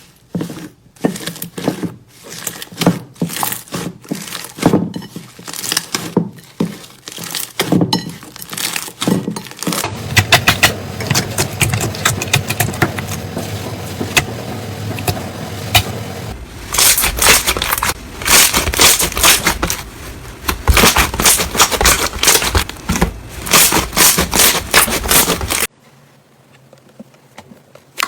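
Slime being squeezed and pressed by hand, making dense crackling and clicking sounds that get thicker and busier partway through, then stop abruptly near the end.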